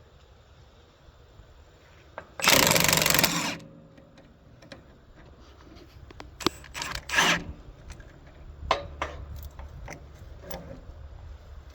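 A power tool runs in one short burst of about a second. Several seconds of knocks and clatters follow as tools and parts are handled.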